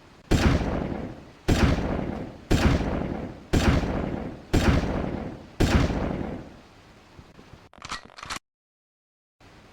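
Shotgun sound effect: six shotgun blasts about a second apart, each sharp with a long booming tail that dies away. They are followed, a little after 7.5 seconds, by a short run of sharp clicks and then dead silence.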